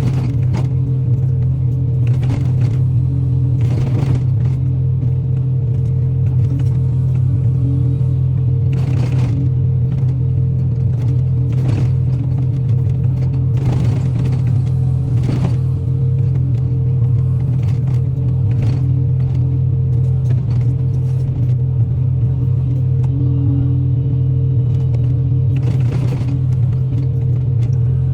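Excavator's diesel engine running at a steady, unchanging speed, with scattered short cracks and scrapes over the top.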